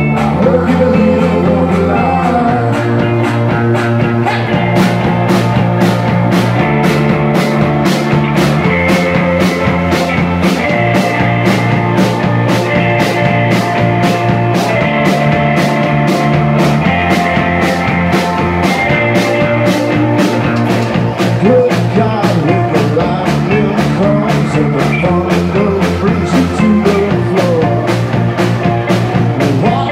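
Rock band playing live on electric guitars, bass guitar, keyboard and drums. The bass holds notes that change every couple of seconds, and steady cymbal hits keep the beat from about four seconds in.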